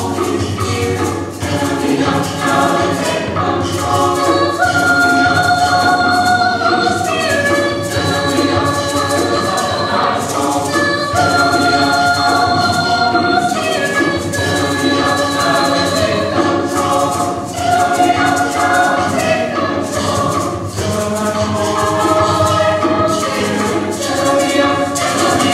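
Mixed-voice choir singing in harmony with held chords changing every second or two, with a girl's solo voice carried through a handheld microphone over the ensemble.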